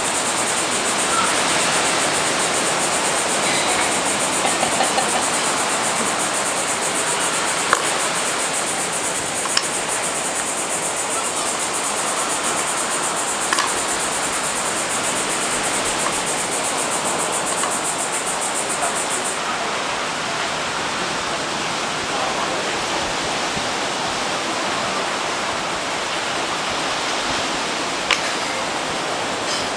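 Steady rushing noise throughout, with a high hiss that stops about two-thirds of the way through. A few sharp clicks of wooden clothespins sound over it.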